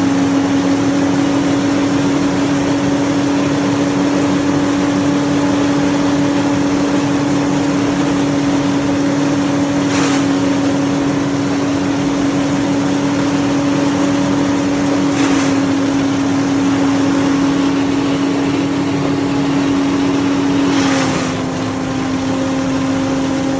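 Engine-driven wood chipper running steadily at speed, a constant strong hum. Three brief bursts of noise cut across it. After the last burst the engine note drops slightly in pitch and loudness.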